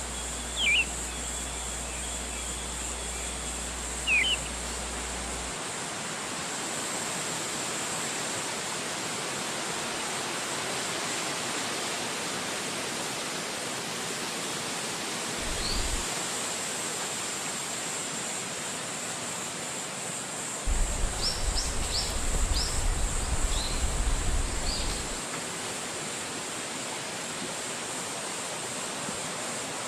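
Steady wind rushing through forest trees, an even noise with a few short bird chirps: two quick falling chirps in the first few seconds and a cluster of brief, higher chirps about two-thirds of the way through.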